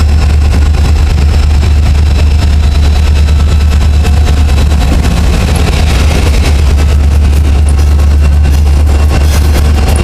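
Lead units of a freight train, EMD SD40-2 diesel locomotives, passing close by at low speed under power: a loud, steady low engine drone with rapid clicking and clatter from the wheels on the rails.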